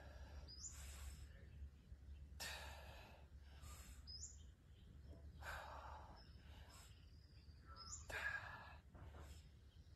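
A person breathing hard during dumbbell raises, four faint breaths about two to three seconds apart, in time with the effort of the lifts.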